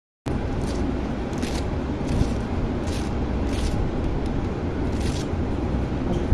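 Steady low rumble of background noise, with short scraping crackles about once a second as a fork and fingers press into the crisp crust of a fried bread pakoda.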